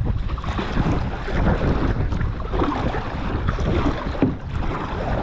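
Gusty wind buffeting the microphone in a low, uneven rumble, with water splashing around a kayak as it is paddled.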